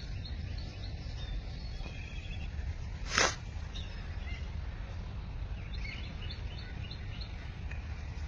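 Park ambience: a steady low rumble with faint, scattered chirps of small birds. A single short sharp click or knock about three seconds in is the loudest sound.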